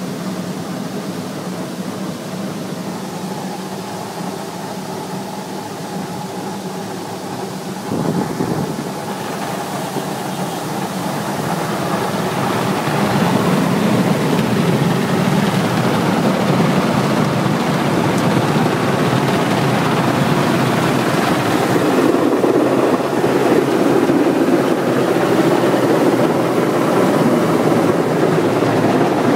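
Automatic car wash heard from inside the car. A steady machine hum with water spraying on the glass comes first. From about twelve seconds in, the louder rushing of the rotating wash brushes scrubbing over the car takes over.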